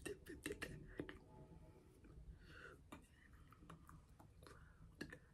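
Faint, scattered clicks and taps of a signer's hands striking and touching each other, thickest in the first second, with a few soft mouth noises in between.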